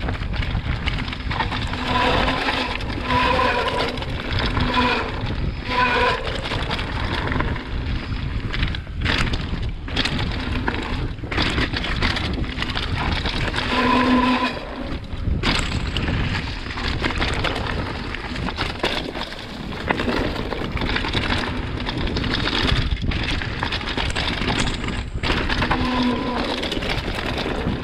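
Mountain bike ridden along a dirt trail: a steady rush of wind and tyre rumble on the bike-mounted microphone, with many knocks and rattles from bumps, and several brief buzzing tones.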